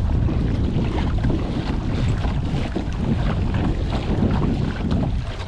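Wind buffeting the microphone in a steady low rumble, with small splashes and knocks of water against a kayak.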